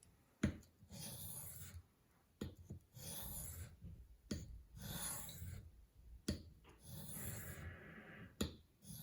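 Spyderco Military knife blade drawn across a sharpening stone to touch up its micro bevel: about four rasping strokes of a second or more each, each starting with a light click as the edge meets the stone.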